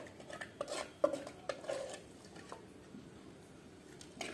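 Metal spoon scraping and clinking against a steel pot as meat masala is scooped out for layering the biryani. There are several quick strokes in the first two seconds, then it goes quieter.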